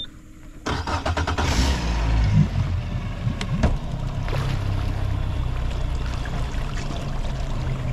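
Bass boat's outboard motor cranking and catching a little under a second in, then running steadily.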